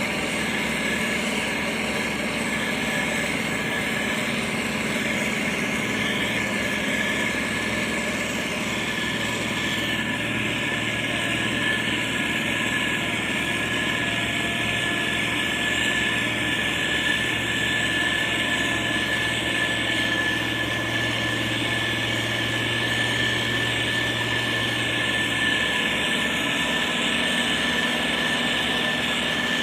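Motor grader's diesel engine running steadily, with a thin, steady high whine over it and a low hum that grows stronger for most of the stretch, then eases near the end.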